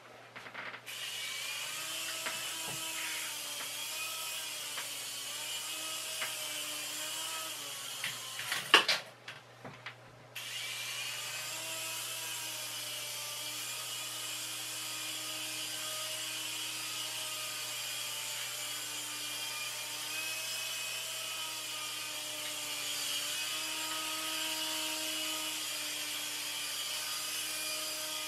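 Mini infrared remote-control helicopter (QS5013) flying, its tiny electric motor and rotors whirring, the pitch wavering up and down with the throttle. About eight and a half seconds in there is a brief clatter of knocks, the whirr stops for a second or two, then starts again.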